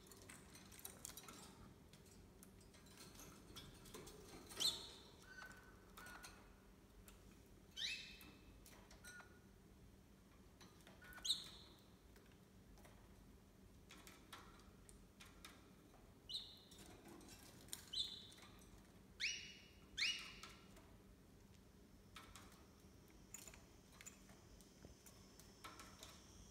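Caged lovebirds giving short, shrill chirps, each sliding down in pitch, about a dozen scattered calls with a cluster near the end, over a faint room hum.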